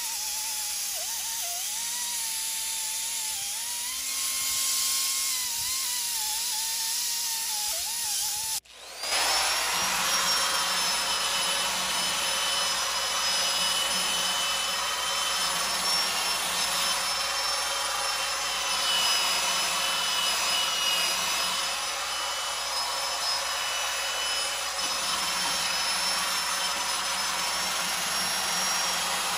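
Hand-held pneumatic grinders running inside a McCormick-Deering engine block's cylinder opening, cleaning off rust. For the first eight seconds or so the whine wavers in pitch. It then cuts off abruptly, and a higher, steadier whine runs on.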